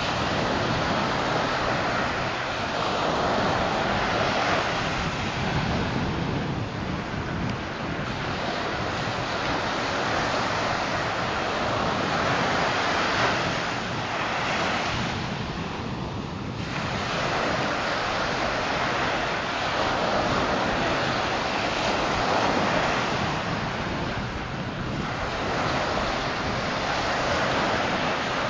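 Surf washing onto a beach, its level swelling and easing every several seconds, with wind blowing across the microphone.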